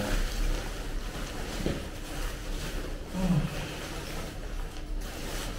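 Rustling and crinkling of tent fabric and its carry bag being handled as a packed tent is pulled out of the bag.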